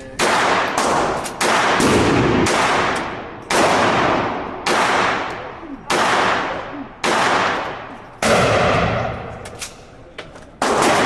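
Gunshots fired one at a time, about nine in all, roughly a second apart, each with a long echoing tail.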